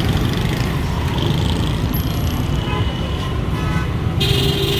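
Busy street traffic: engines running in a steady low rumble, with a vehicle horn sounding briefly near the end.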